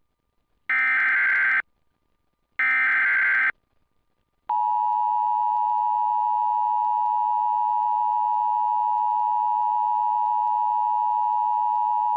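Emergency Alert System SAME header: two short screeching data bursts about a second each, a second apart (the end of the three-burst header). Then the EAS attention tone, a steady loud tone held about eight seconds, announcing the tornado warning that follows.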